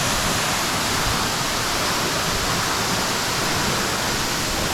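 Waterfall crashing down into its pool close by: a loud, steady rush of falling water.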